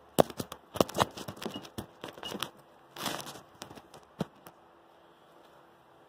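Stick-welding arc from a 36-volt battery arc welder, crackling in irregular short bursts for about four seconds and then stopping.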